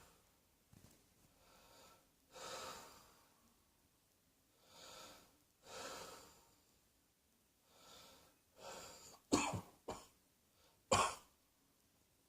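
A person breathing audibly, with several slow breaths in and out, then coughing: a quick run of three sharp coughs about nine seconds in and one more a second later.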